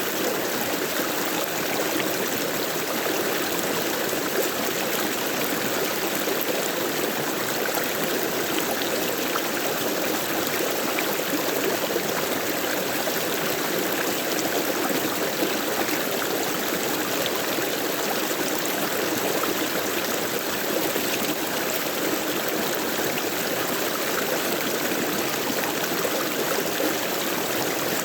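Stream water flowing and trickling steadily, a continuous splashing rush with fine droplet ticks.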